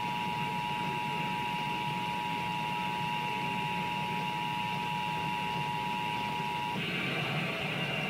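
Emergency Alert System attention signal: the steady two-tone alarm (853 and 960 Hz sounded together), played through a television's speaker over a constant hiss. It cuts off about seven seconds in, marking the start of a Required Monthly Test of the Iowa EAS.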